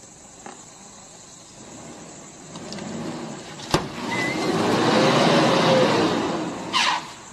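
Vehicle engine revving up and easing back down, with a sharp knock about midway and a short harsh burst near the end.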